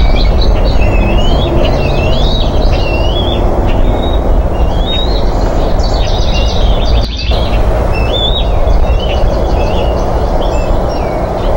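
Birds chirping and whistling repeatedly in short, sliding notes over a loud, steady low rumble of outdoor noise on the nest camera's microphone, with a brief dropout about seven seconds in.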